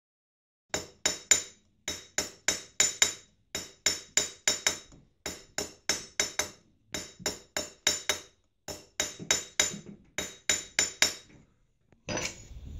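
Metal hammer striking the top of a silver vase held over a steel stake, tucking the rim in: runs of three to six sharp, ringing taps, several a second, with short pauses between. The taps stop about a second before the end, giving way to a lighter clatter of handling.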